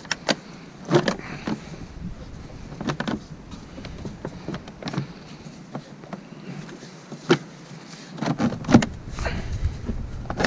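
Rubber air intake tube being worked loose by hand from a Ford 7.3L Super Duty's plastic air box: irregular clicks, knocks and rubbing of rubber and plastic, with a cluster of knocks near the end.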